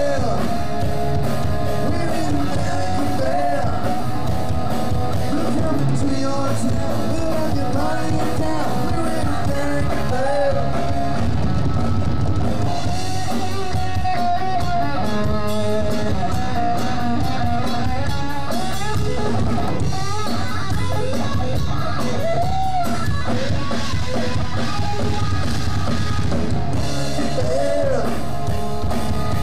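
Live rock band playing, with electric guitar, bass guitar and drum kit under sung vocals.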